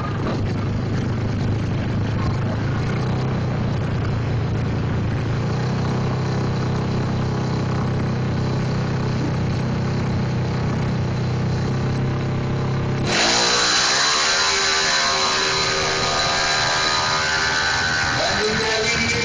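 Drag-racing motorcycle engine running at a steady low note. About two-thirds of the way through it gives way abruptly to a much brighter, higher-pitched sound.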